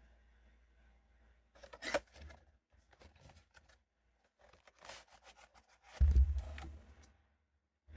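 Blind-box toy packaging handled by hand: short crinkles, rustles and scrapes of cardboard and plastic, with a dull thump about six seconds in, the loudest sound.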